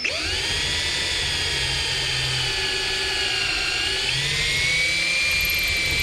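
Electric drill boring a hole into a wooden rifle stock for a sling stud: a steady motor whine that sags slightly under load, then rises again about four seconds in and stops near the end.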